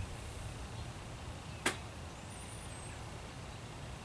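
Outdoor shooting-range ambience with a steady low rumble and a bird chirping high up. A single sharp gunshot from farther down the range sounds about a second and a half in.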